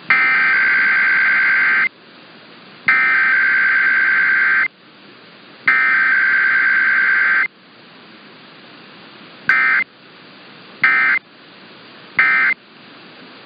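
Emergency Alert System SAME data bursts: three shrill warbling two-tone bursts of about two seconds each, a second apart, then after a short pause three brief bursts of the end-of-message code. Header and end-of-message sent back to back with no attention tone or voice, as in a required weekly test.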